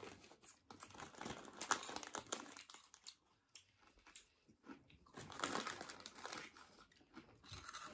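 A crisp packet of peanut puffs crinkling as it is handled and a hand reaches inside, in two spells of irregular rustling.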